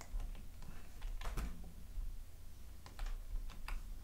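Irregular clicks from a computer mouse and keyboard, over a low steady hum.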